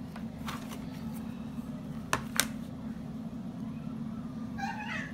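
Steady low room hum with a few light clicks and taps as a clear acrylic quilting ruler and pencil are handled on a cutting mat, two sharp clicks close together about two seconds in.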